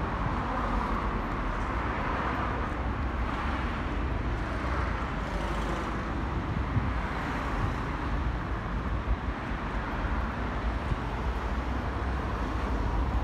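Street traffic noise: a steady hiss of passing cars that swells and fades as vehicles go by.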